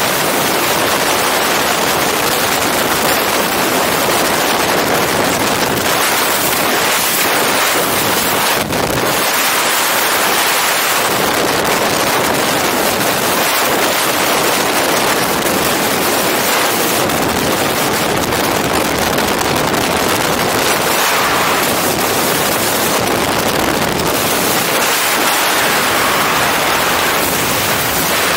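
Freefall wind rushing over a helmet-mounted camera's microphone: a loud, steady rush of noise with a brief dip about nine seconds in.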